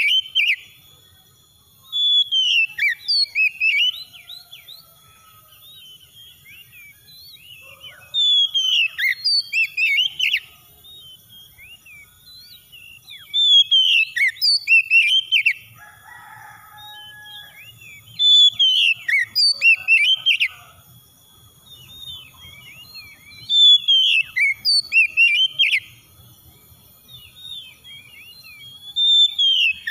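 Male Oriental magpie-robin singing: loud phrases of clear whistles and sliding notes, each lasting two to three seconds and repeated about every five seconds, with quieter scattered notes between them.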